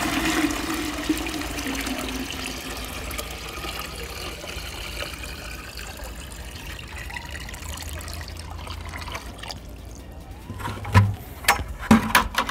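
Nutrient solution pouring in a stream from one plastic bucket into another, splashing into the liquid below and thinning out over several seconds. A few sharp knocks near the end.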